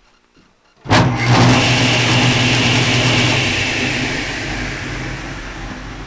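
Table saw switched on about a second in, its new 1.5 HP Marathon electric motor and belt-driven blade running up at once and then running steadily with a hum and a high whine. The sound slowly gets quieter towards the end. The new motor runs smoothly: 'sounds better than it ever did.'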